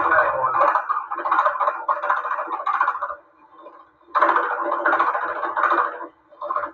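Vertical Bridgeport milling machine's cutter taking a hand-fed cut across the boss of a car's front brake spindle, a rough cutting noise with a little vibration. The cutting sound drops away briefly a little after three seconds in and again near the end.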